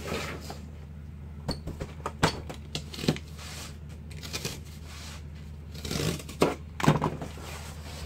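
Cardboard being cut and handled: short scrapes and clicks, busiest about six to seven seconds in, over a steady low hum.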